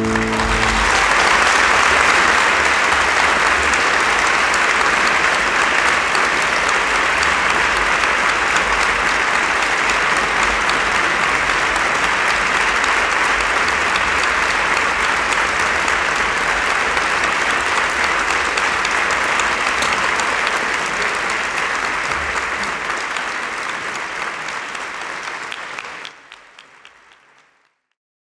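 Audience applauding steadily, the applause fading out near the end.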